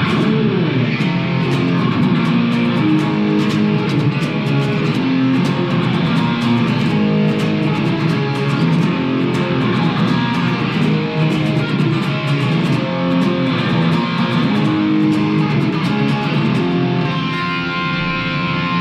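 Epiphone Les Paul Standard electric guitar played through an amplifier: a picked, moving line of notes, settling into a long held note near the end.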